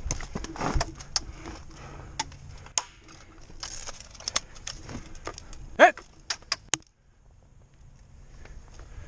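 Airsoft guns firing single shots at an irregular pace, a dozen or so sharp snaps over about seven seconds, with a shout of "Hit!" about six seconds in; the shots stop about seven seconds in.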